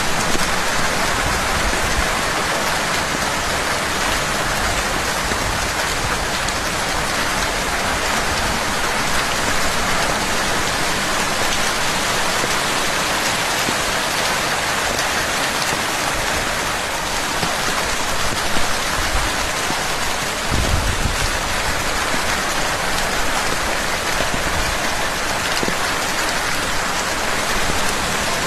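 Steady rain falling and pattering on surfaces, with a brief low rumble about two-thirds of the way through.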